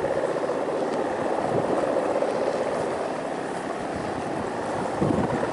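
Steady droning buzz of a large Balinese kite's hummer (guangan) vibrating in strong wind, with wind noise.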